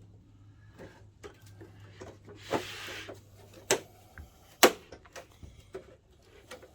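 Scattered clicks and knocks of small parts and plastic housing being handled while a loose screw is worked out of a projector, with a short scrape about two and a half seconds in and a sharper knock near the middle. A faint low hum stops a little before four seconds in.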